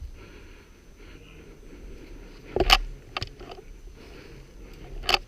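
Two loud sharp cracks, one a little under three seconds in and one near the end, with a fainter one just after the first, over low rustling.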